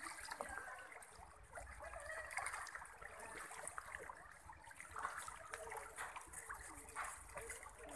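A shoal of tilapia feeding at the water's surface: a continuous patter of small splashes and pops as many fish break the surface.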